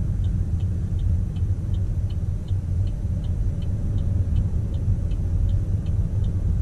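Car driving, heard from inside the cabin: a steady low rumble of engine and tyres. Over it, a turn-signal indicator ticks evenly about three times a second.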